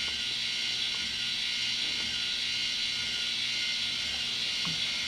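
Small electric motor turning a wooden carousel-swing kinetic model, running with a steady whir and low hum under a constant hiss.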